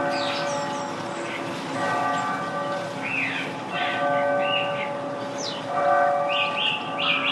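Church clock bells striking about every two seconds, each stroke ringing out, while a thrush sings in quick, varied phrases over them.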